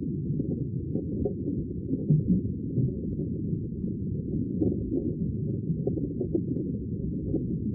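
Sea water, heard muffled as a steady low rumble with small irregular pops and gurgles scattered through it.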